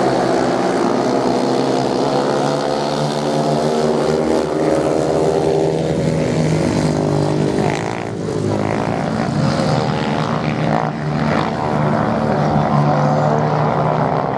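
Several racing motorcycle engines running together on a beach sand track: a steady, loud, many-toned drone whose pitch rises and falls in the middle as the riders work the throttles.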